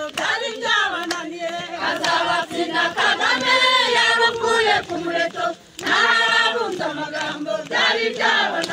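A crowd singing a song together as a group, many voices at once, with a short break about five and a half seconds in.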